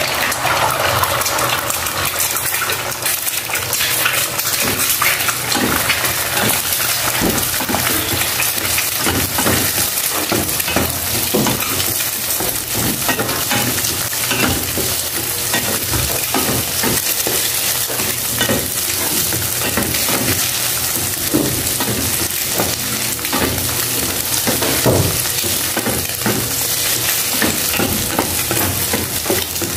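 Eggs sizzling steadily as they fry in hot oil in a pan, with a wooden spatula scraping and knocking against the pan as they are broken up and scrambled.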